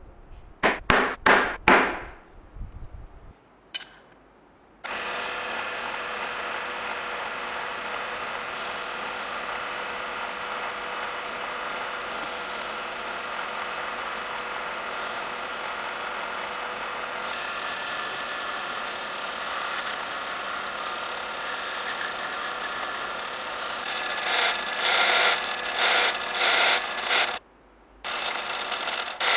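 A few quick scratching strokes of a steel scriber on a steel bar. Then a drill press runs steadily with a whine as its twist drill cuts into the steel. Near the end the cutting comes in louder surges about once a second, broken briefly by a cut.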